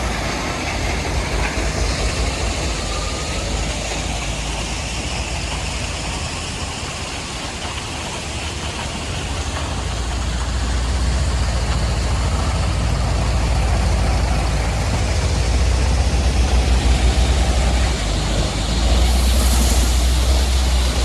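Heavy diesel machinery engine running with a deep, steady low rumble. It grows louder about halfway through and again near the end, as if put under more load.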